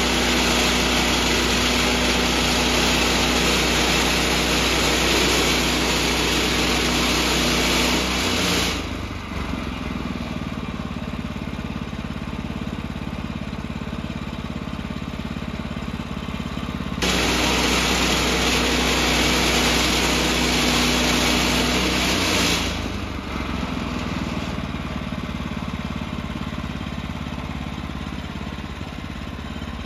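Gasoline engine of a Woodland Mills HM126 portable bandsaw mill, running at high speed with the band blade sawing through the log. It drops back to idle about eight seconds in, revs up and saws again for about five seconds, then settles to idle again near the end.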